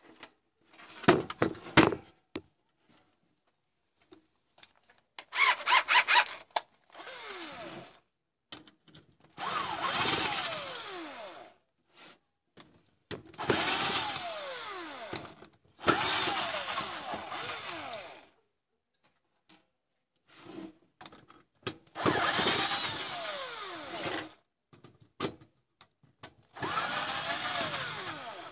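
Cordless drill-driver backing screws out of a computer power supply's sheet-steel case, in about five runs of roughly two seconds each, its motor pitch falling during each run. Before the first run come sharp knocks and a quick series of clicks as the tool and case are handled.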